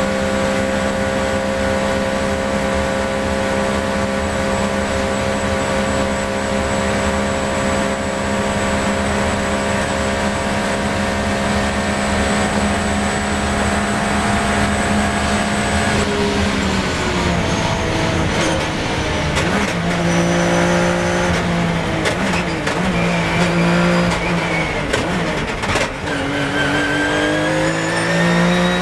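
Porsche 997 GT3 Cup's flat-six race engine held flat out near 8,000 rpm in sixth gear, a steady high note, until a little past halfway. Then the driver lifts and brakes, and the engine note falls and jumps through a series of downshifts down to second gear. Near the end it climbs again as the car accelerates.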